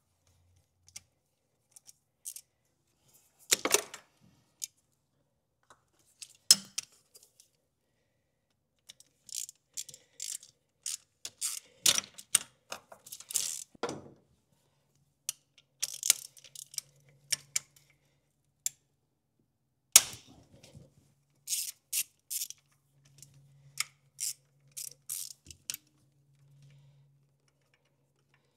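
Hand tools and metal parts clicking and clanking as hoses and fittings of the secondary air system are worked loose: scattered light clicks with a few sharper clanks, and stretches without sound between them.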